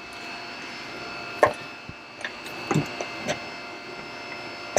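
A few scattered knocks and taps, the loudest about a second and a half in, from small hardware and a screwdriver being handled against a plastic kayak deck, over a faint steady hum.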